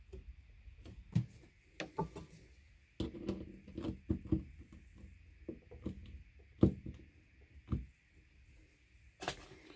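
Screwdriver tightening a worm-drive hose clamp on the hose barb of a PVC vent-filter canister, heard as irregular small clicks and knocks of metal and plastic being handled, with a faint steady high whine underneath.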